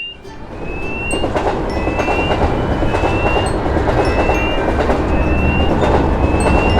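A train running past a level crossing, its rumble and clatter swelling over the first second and then holding steady. Over it the crossing warning signal repeats a short rising beep about twice a second.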